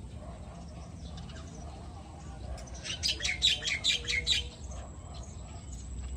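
A bird calling: a quick run of about eight sharp notes lasting under two seconds, a little before the middle, over a steady low outdoor rumble.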